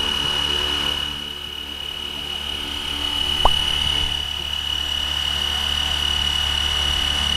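FlyWing FW450 V3 electric RC helicopter hovering just above the ground: a steady high whine over a low drone, with a short sharp blip about three and a half seconds in.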